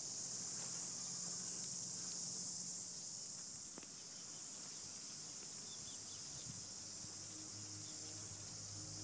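Steady high-pitched insect chorus. Soft music fades in over the last couple of seconds.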